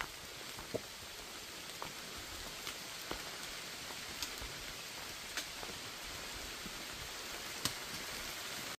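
Steady rain falling on the forest foliage, an even hiss with a few single sharp drop taps scattered through it.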